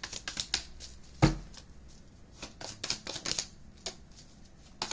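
Tarot cards being shuffled by hand: runs of quick card flicks, with one sharp thump about a second in, the loudest moment.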